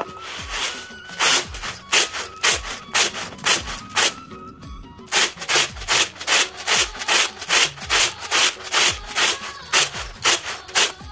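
Wheat grain being winnowed in a supa (winnowing basket): rhythmic swishing strokes, about two a second, as the grain is tossed and shaken, with a short break about four seconds in. This is seed wheat being cleaned of dirt and neem leaves before sowing.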